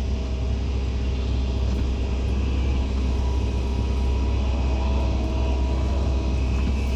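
Heavy diesel engine of earth-moving machinery running steadily, a deep continuous rumble with no change in pace.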